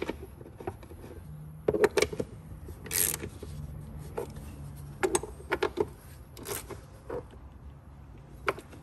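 Ratchet and socket clicking and metal tools clinking as two 10 mm bolts are run in and tightened on a plastic timing-belt cover, with scattered clicks, a quick run of clicks and a couple of brief rasps.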